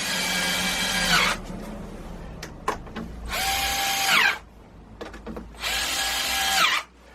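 Power drill-driver driving large Torx screws into oak, in three runs of about a second each; at the end of the last two the motor's pitch falls as it slows.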